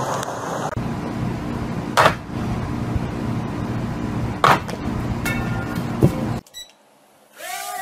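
A homemade wooden two-by-four pull-up bar giving way under a man's weight: two sharp knocks about two and a half seconds apart, as the wood breaks and he drops, over a steady low hum.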